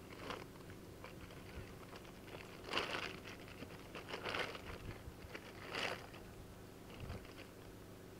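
Blue plastic tarp crinkling in several short bursts as it is handled and pulled against a boat's railing while being tied down.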